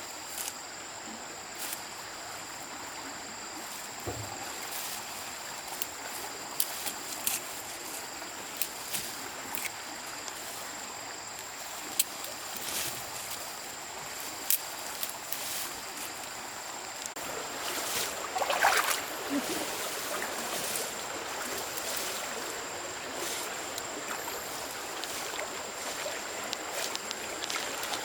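Steady rush of flowing water, with scattered sharp clicks and knocks over it and a louder cluster of noises about two-thirds of the way through.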